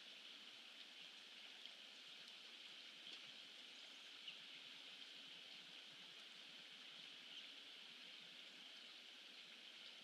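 Near silence: faint, steady outdoor ambient hiss from a pond-side webcam microphone, with a few soft ticks scattered through the first half.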